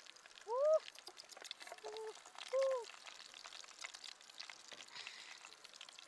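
Chicken legs frying in oil in a pan, a light crackling sizzle of many small pops. Three short calls stand out above it, about half a second, two seconds and two and a half seconds in; the first rises in pitch and the last arches up and down.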